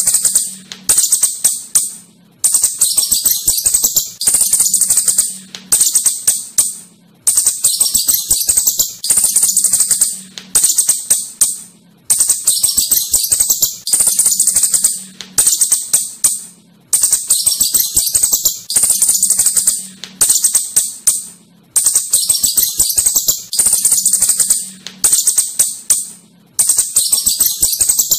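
Asian house shrew chattering: rapid, high-pitched clicking squeaks in bouts of one to two seconds with short breaks between, repeating over and over, over a faint low hum.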